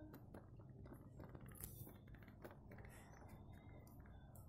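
Near silence with faint, scattered clicks and light clinks of small hard objects, the most noticeable about a second and a half in.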